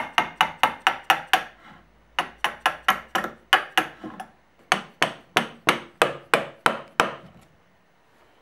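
A chisel struck in quick, light blows, about four a second, in three runs with short pauses, as it pares the edge of a softwood board straight.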